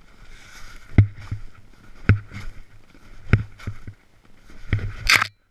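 A snowboarder moving about on the snow, making dull thumps roughly once a second, with a brief crunchy scrape near the end.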